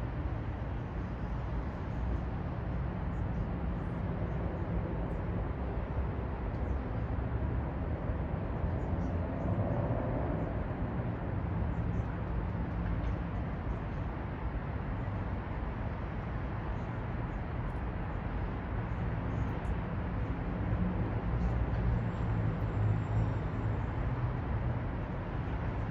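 City traffic ambience: a steady low rumble of road traffic, swelling a little about ten seconds in and again near the end as vehicles pass.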